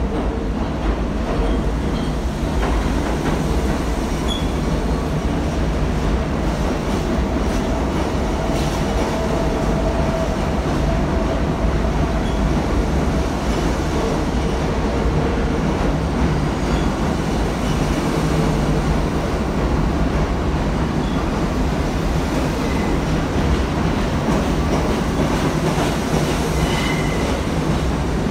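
R68A New York City subway train running along the station platform: a steady, loud rumble of steel wheels on rail, with brief faint wheel squeals near the end.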